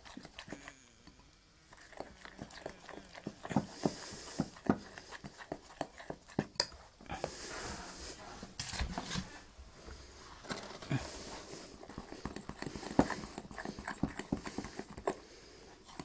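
Thick crêpe batter, not yet smooth, being beaten by hand in a bowl, the utensil tapping against the bowl irregularly.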